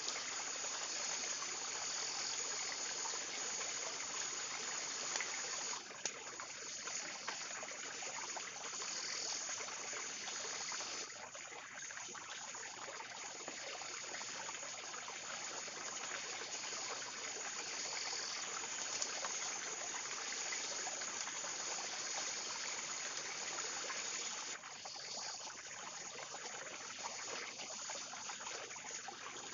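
Steady rushing noise of flowing water, like a forest stream, dipping slightly in level about six seconds in and again near the end.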